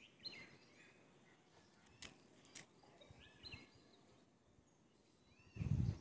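Quiet outdoor background with faint, scattered bird chirps. Two light clicks come a little after two seconds in. A brief low rumble near the end is the loudest sound.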